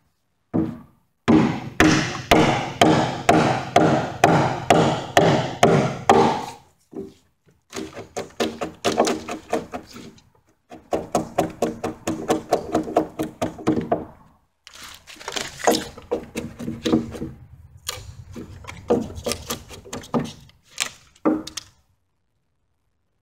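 Pack axe blade cutting into a wooden timber beam while paring out a mortise: quick repeated thunks, about two a second, in runs of several seconds with short pauses between.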